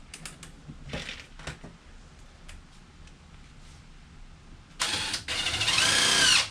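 Cordless drill/driver driving a small screw: light handling clicks, then near the end two short runs of the motor, its whine rising and falling in pitch, before it stops abruptly.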